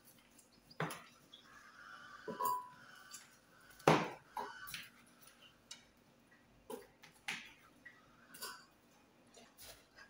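Tomatoes dropped by hand into a glass blender jar, landing with irregular knocks and clunks against the glass and each other. The loudest knock comes about four seconds in.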